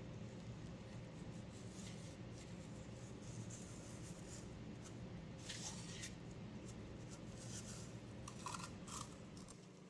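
Faint steady low hum with scattered soft rustles and clicks of small handling noises, a cluster of them around the middle and a couple more near the end.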